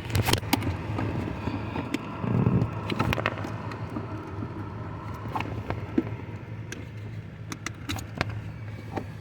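Scattered plastic clicks and knocks of a turn-signal flasher relay being worked loose from its connector under a car's dashboard, busiest two to three seconds in, over a steady low hum.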